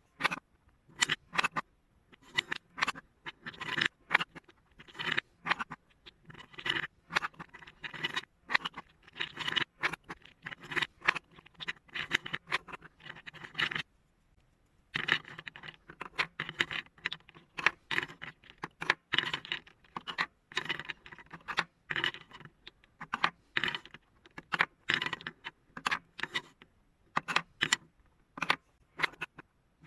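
Marbles rolling and clattering down a marble run track: a dense stream of clicks, rattles and scraping, broken by a short pause about halfway through.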